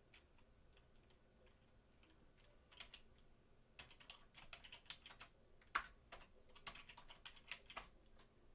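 Faint typing on a computer keyboard: a few scattered keystrokes, then quick irregular runs of key clicks from about three seconds in.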